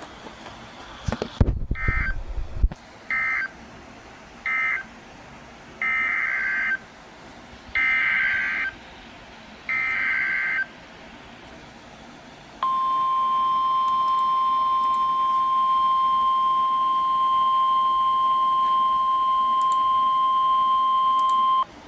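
Emergency Alert System SAME data bursts, a harsh two-tone digital screech, from a NOAA Weather Radio broadcast. Three short bursts end the first flood warning, then three longer header bursts announce the next, with a brief low rumble just before them. About halfway through, the steady 1050 Hz weather-radio warning alarm tone begins and sounds unbroken for about nine seconds.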